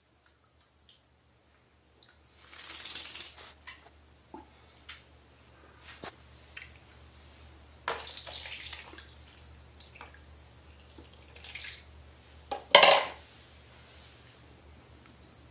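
Water splashing and sloshing in short bouts as a cat moves about in water, with a few sharp knocks; the loudest splash comes near the end.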